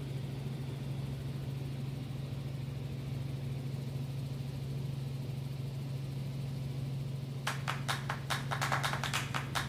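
Steady drone of a helicopter's engine and rotors heard from inside the cabin. Near the end, music with a fast, regular beat comes in over it.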